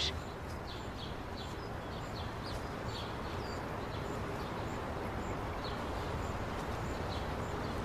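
Outdoor ambience: small birds chirping in short repeated notes over a steady background hiss.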